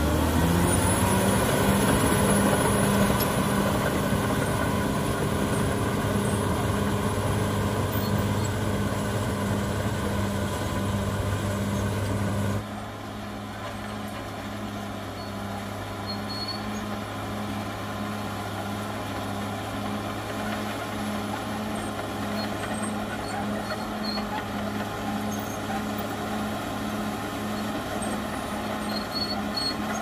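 CAT D6R XL bulldozer's diesel engine running hard as the dozer pushes earth, its revs rising in the first second and then holding steady. The sound drops noticeably in level about twelve seconds in, heard from farther off for the rest.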